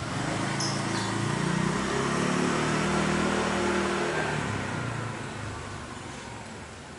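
A motor vehicle's engine passing by, swelling in the first second and fading away after about five seconds.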